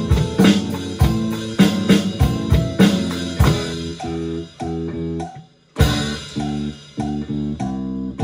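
Electronic drum kit played along to a backing track with electric guitar and bass. Regular drum hits for the first few seconds, then the guitar and bass carry on with few or no drum hits, with a short break about halfway through.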